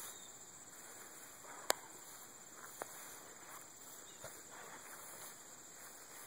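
Steady high-pitched chirring of insects, with soft footsteps in grass and two sharp clicks, the first about a second and a half in, the second a second later.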